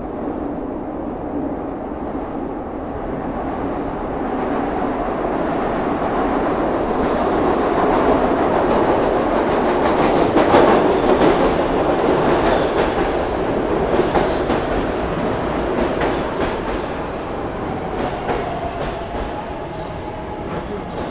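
A Market-Frankford Line subway train (Kawasaki M-4 cars) pulling into an underground station: a rumble builds as it approaches and is loudest about ten seconds in, with high wheel squeal and a run of sharp clicks from the wheels over the rails as the cars pass along the platform.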